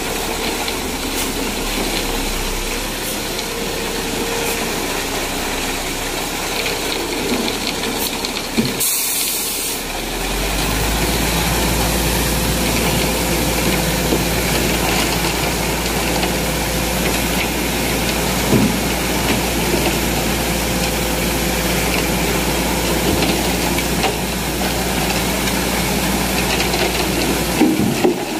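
An engine running steadily with a hiss over it. About nine seconds in the sound breaks off briefly, then resumes with a stronger deep hum.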